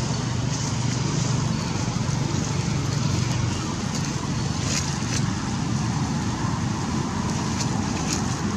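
Steady low rumbling background noise at an even level, with a few faint clicks about halfway through and again near the end.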